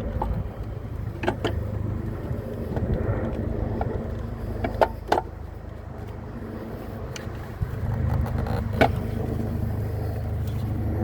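Scattered sharp clicks and knocks of tools and parts being handled in a car's engine bay, about six in all, over a steady low rumble.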